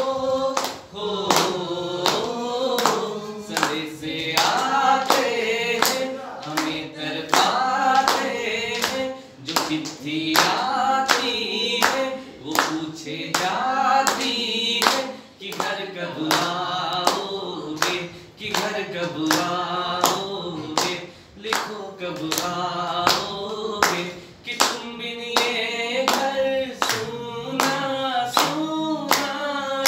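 A man singing a Hindi song unaccompanied, drawing out long notes, with steady rhythmic hand-clapping keeping the beat.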